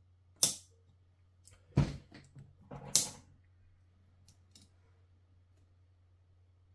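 A hand-operated fibre-optic cleaver being worked: sharp mechanical clicks and snaps of its lid and clamps, three loud ones about half a second, two and three seconds in with smaller ticks between, then two faint ticks, over a faint steady low hum.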